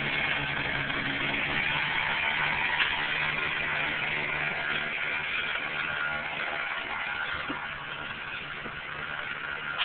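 Small moped engine running steadily under load as it pulls a boat on a trailer, its note fading somewhat in the second half as it moves off.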